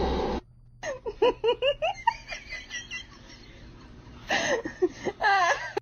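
Someone laughing in a quick run of short, rising-and-falling bursts, then a second wavering run of laughter near the end.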